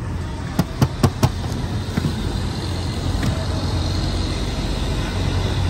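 Hands slapping floured dough balls flat for parathas, four sharp slaps in quick succession about a second in, over a steady low rumble of traffic and kitchen noise.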